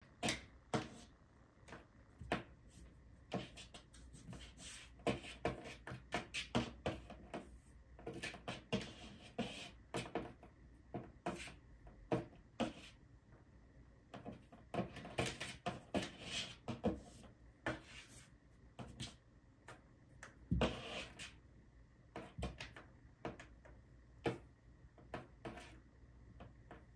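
Kitten's paws batting a string against the side of a cardboard box: irregular soft taps and knocks on the cardboard, coming in quick flurries with short pauses between.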